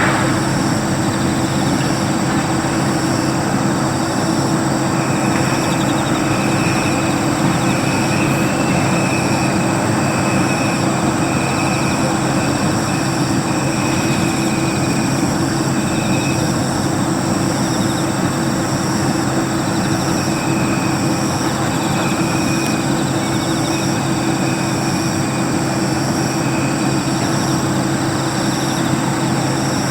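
Jet aircraft engines running steadily: a constant whine at several pitches over an even rush of noise.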